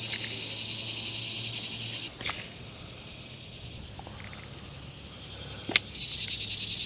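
Cicadas buzzing in a pulsing high drone, two bouts of about two seconds each, one at the start and one near the end, over a faint steady low hum, with a couple of sharp clicks between.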